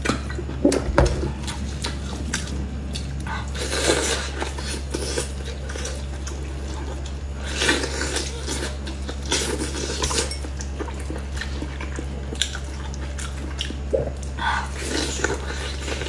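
Close-miked eating sounds: a few swallows from a plastic bottle at the start, then wet biting, chewing and smacking on a large piece of glazed braised meat, coming in several short bursts. A steady low electrical hum runs underneath.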